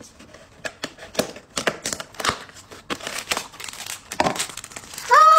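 Packaging being handled as a white cardboard box is cut open and unpacked: scattered crinkling, rustling and small clicks and scrapes of card and paper. Near the end a short, high-pitched voice sound begins.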